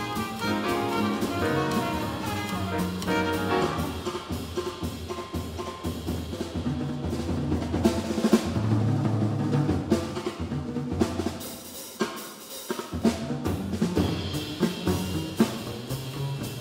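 Live modern jazz quartet: a trumpet line over double bass, piano and drum kit for the first few seconds, then the drum kit comes to the fore with busy strokes over the walking bass.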